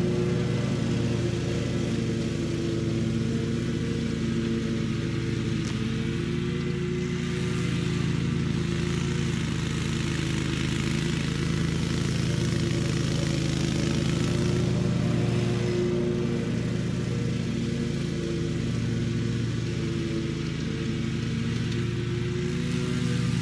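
Scag commercial walk-behind lawn mower running steadily while cutting grass. The engine's hum swells and fades a little as the mower moves across the lawn.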